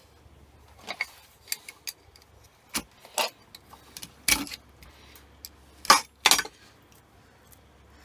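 Copper cable being pulled through a homemade wood-and-screw stripping block and handled: scattered sharp metallic clicks and clinks, the loudest two close together about six seconds in.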